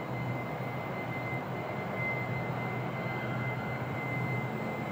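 Steady factory-floor background noise of an assembly plant: an even rush of ventilation and machinery over a low hum, with a faint steady high whine running through it.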